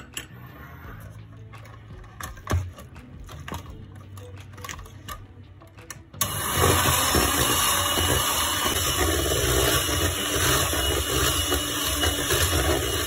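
Light clicks and knocks for the first six seconds. Then an electric hand mixer switches on suddenly and runs steadily, its twin beaters whipping thick cake batter in a plastic bowl.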